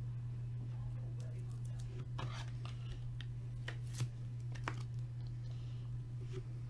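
Scattered light clicks, taps and rustles of trading cards and their packaging being handled, the sharpest tap about four seconds in, over a steady low electrical hum.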